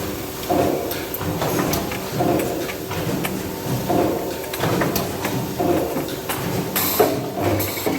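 Factory machinery running in a repeating cycle, with clanks and knocks about once a second and a short hiss about seven seconds in.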